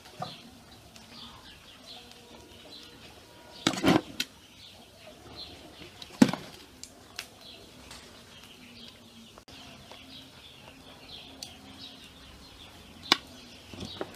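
A metal slotted skimmer scrapes and knocks against an aluminium pot as cooked rice is scooped out, with a few clanks, the loudest about four and six seconds in. Birds chirp steadily in the background.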